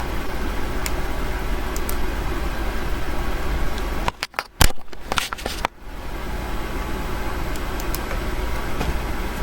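Rain sound effect: a steady, even hiss of rainfall. About four seconds in it breaks for roughly two seconds into sharp clicks and dropouts.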